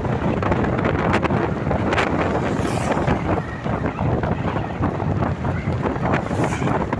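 Wind buffeting the microphone: a loud, steady rumbling noise with a few brief crackles.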